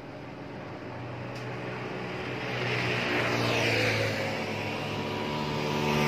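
A heavy road vehicle approaching and passing: its engine hum and tyre noise grow louder to a peak about halfway through, then ease off as another vehicle comes up loudly near the end.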